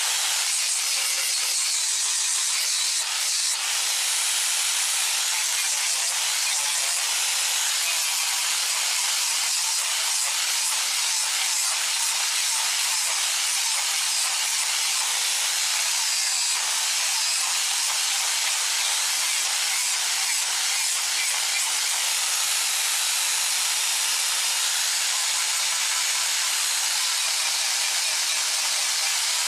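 Electric angle grinder running steadily, its disc grinding and shaping a sonokeling (Indonesian rosewood) knife handle: a continuous high hiss.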